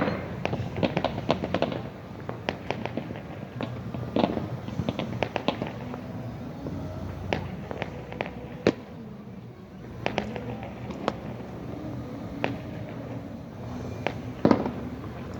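Fireworks and firecrackers going off in irregular pops and bangs, with dense crackling clusters in the first couple of seconds and again around four to five seconds. Single sharper bangs come near nine seconds and, loudest of all, near the end.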